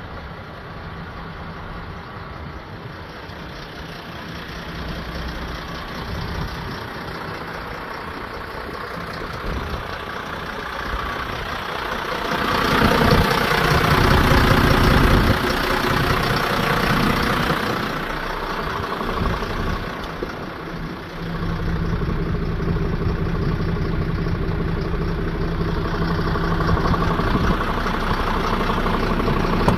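MAN LE 18.220 fire truck's six-cylinder diesel engine idling steadily. It grows much louder and noisier for about five seconds around the middle, then settles to a steady low hum.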